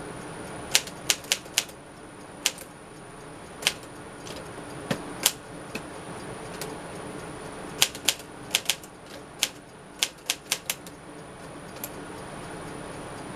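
A 1959 Smith-Corona Silent-Super manual typewriter being typed on: sharp key-strike clacks at an uneven pace, in small clusters with short pauses between them.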